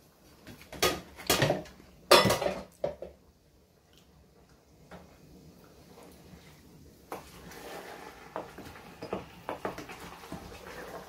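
Wooden spoon stirring thick leafy vegetable soup in a large aluminium pot, with a few loud clatters against the pot in the first three seconds, then quieter scraping and stirring from about seven seconds in.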